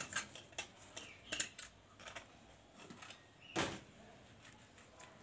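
Plastic bag being handled to take out pieces of raw meat, a string of light crackling clicks, with one louder rustle about three and a half seconds in.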